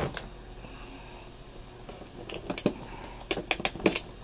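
Stiff cardboard and plastic packaging handled and forced. Faint rustling, then a quick cluster of sharp crackles and snaps in the second half as a tightly held figurine is pushed out of its slot.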